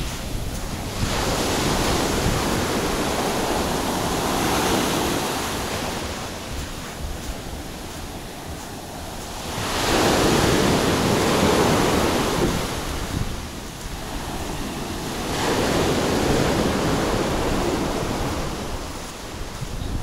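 Surf breaking and washing up a sandy beach, swelling and falling three times, with a steady low rumble of wind on the microphone.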